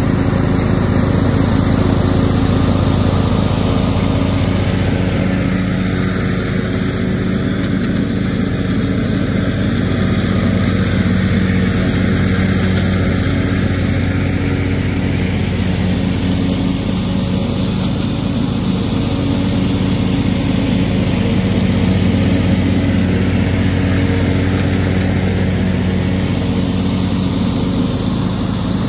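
John Deere riding lawn tractor's engine running steadily while it mows grass, the tone shifting slowly as the tractor passes close by and moves off again.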